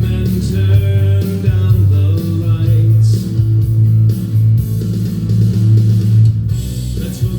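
Recorded guitar music with a steady bass line.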